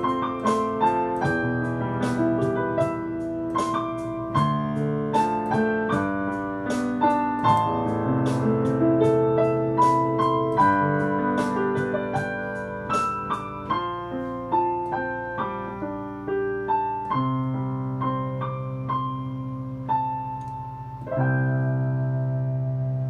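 Yamaha digital piano playing the closing bars of a slow Taiwanese ballad, melody over left-hand chords. The notes thin out and slow about halfway through, and after a short pause near the end a final chord is struck and left to ring and fade.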